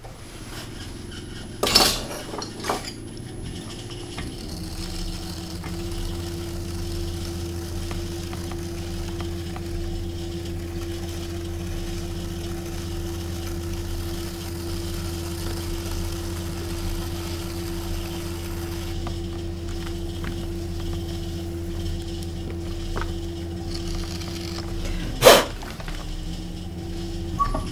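Electric potter's wheel running with a steady hum while a loop trimming tool scrapes the foot ring of a leather-hard clay pot. The hum starts about four seconds in and stops just after a sharp click near the end; another sharp click comes about two seconds in.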